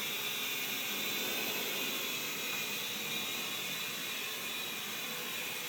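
Parrot AR.Drone quadcopter's electric motors and propellers running steadily: an even whirring hiss with a faint high whine.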